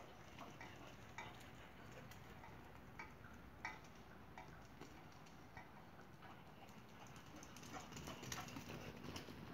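Faint scattered clicks and taps of footfalls on asphalt, coming more often and a little louder about eight seconds in.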